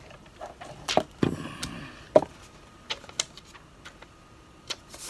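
Handling noise from unboxing a smartphone: several sharp knocks and taps as the phone in its clear plastic sleeve and its cardboard box are set down and picked up on a wooden table, with a short rustle of plastic about a second in.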